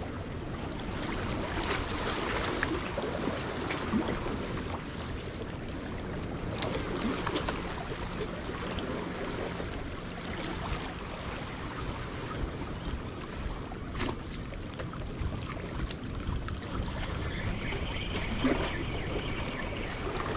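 Rough sea surging and washing against jetty rocks, with wind buffeting the microphone.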